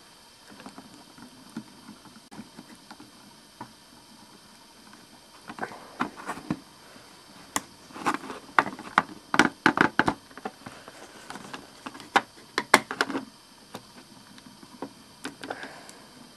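Plastic SH Figuarts action figure being handled and posed: a run of sharp clicks and taps of its parts, thickest through the middle, with quieter handling between.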